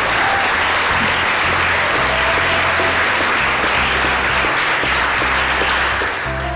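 Audience applauding steadily, with a low sustained musical tone underneath; the applause stops near the end as music starts up.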